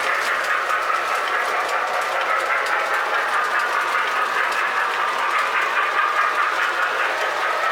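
Lionel-style O gauge toy train running on three-rail track: a steady whir of the motor and rolling wheels, with faint clicks over the track.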